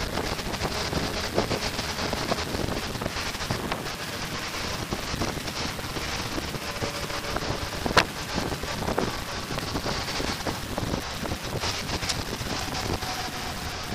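Wind rushing over the microphone, mixed with the road and engine noise of a Honda Goldwing GL1500 motorcycle on the move. A single sharp knock about eight seconds in.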